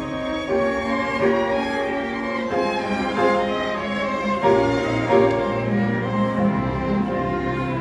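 Instrumental introduction of a slow song: violin playing a melody of held notes over lower bowed strings, with a low bass line entering about four and a half seconds in.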